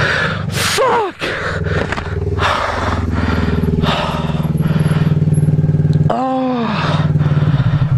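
Yamaha sport motorcycle's engine running steadily with a fine even pulse. It breaks off briefly about six seconds in, and a few short sweeps in pitch come in between.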